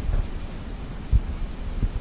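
Snowstorm wind gusting, a low rumble with two short bumps, about a second in and near the end.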